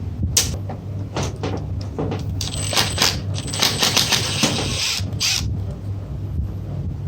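Metal parts and hand tools clinking and clattering in a series of sharp, irregular clicks, with short stretches of hissing noise in the middle, while an electric winch is worked on. A steady low hum runs underneath.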